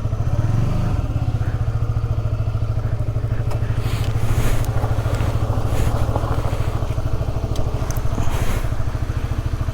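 Honda CBR150R's single-cylinder four-stroke engine running at low, steady revs, with an even pulsing beat and no revving.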